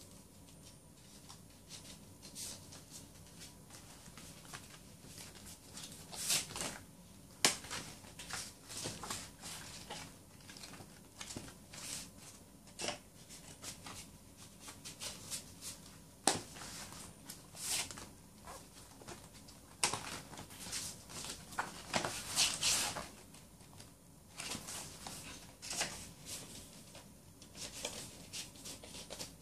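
Irregular rustling, sliding and light tapping of albums and packaging being handled, in short bursts, loudest about six to eight seconds in and again a little after twenty seconds.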